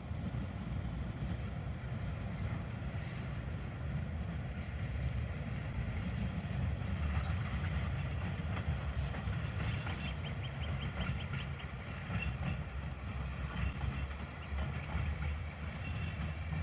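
Two coupled NGTW6 "Leoliner" articulated trams running past, a steady low rumble of wheels on rails. About ten seconds in comes a quick run of clicks.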